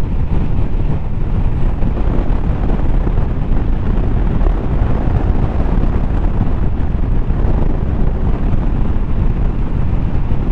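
Wind buffeting a motorcycle helmet microphone while riding, a steady low rush over the motorcycle's engine and road noise.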